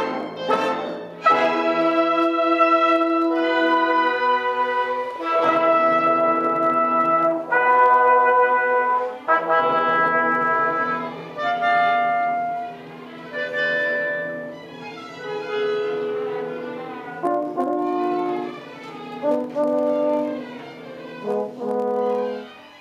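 Live orchestra playing, with a string of loud held chords for the first ten seconds or so, then a quieter passage of shorter notes.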